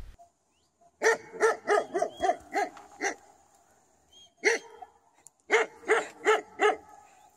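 A dog barking in quick runs: six barks, a single bark, then four more.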